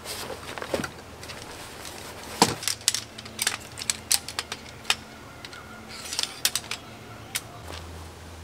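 A run of irregular sharp clicks and light clinks of small hard objects being handled, the loudest about two and a half seconds in, thinning out near the end.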